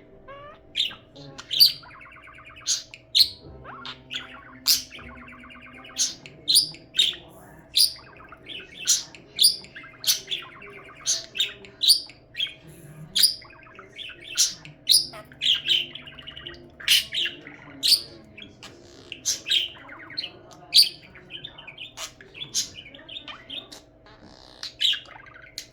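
Budgerigar chattering: a string of sharp, high chirps, about one or two a second, mixed with stretches of warbling.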